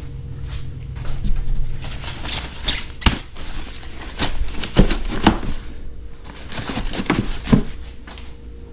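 Packing material being handled and pulled off: rustling and scraping with clusters of clicks, and a few sharp knocks about three, five and seven and a half seconds in.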